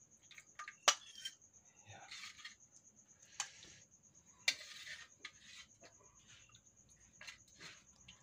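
A metal ladle clinks against a metal wok and a ceramic plate while fish soup is served, with soft splashes of broth between the clinks. The loudest clink comes about a second in.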